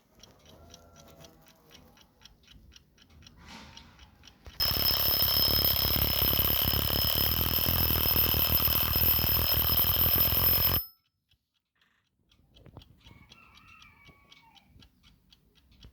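Junghans alarm clock ticking rapidly, then its alarm rings loudly and continuously for about six seconds before cutting off abruptly. After a short silence the ticking carries on faintly.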